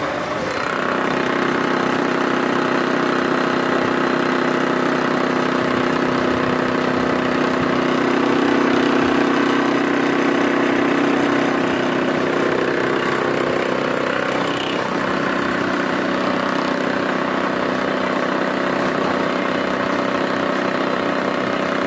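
Milling machine running steadily, a machine hum with several held tones that gets louder under a second in. A brief knock about fifteen seconds in, after which the tones shift slightly.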